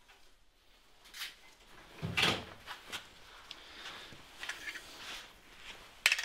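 Metal hand tools being handled at a car's rear brake caliper mounting bracket: scrapes, light knocks and rattles, and one sharp click near the end.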